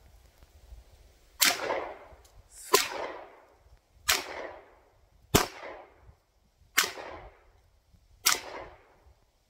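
Handgun shots, six single shots fired evenly about a second and a half apart, each a sharp crack trailing off briefly.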